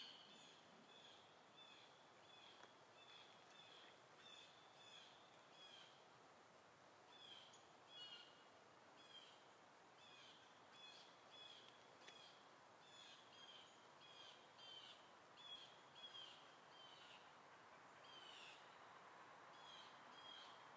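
Faint bird chirping: short, slightly falling chirps repeated about twice a second, with a short pause about six seconds in, over a faint steady background hiss.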